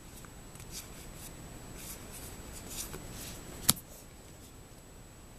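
Paper trading cards being handled, with a few soft swishes as they slide against each other and are laid on a pile. One sharp click comes near the middle.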